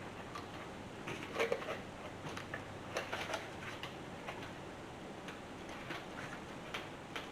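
Faint scattered clicks and light knocks of metal steering-shaft parts being handled and slid together, bunched about a second in and again about three seconds in.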